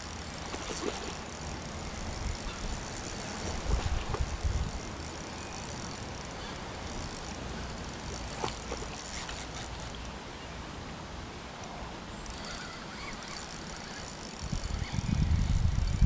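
Fishing reel being wound in with a steady clicking whirr as an eel is played on a bent rod. Low rumbling bumps on the microphone come about four seconds in and again near the end.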